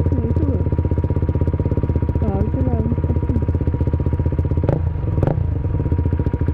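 Motorcycle engine running steadily at low revs while rolling slowly, an even pulsing beat. Two short sharp knocks come close together about three-quarters of the way through.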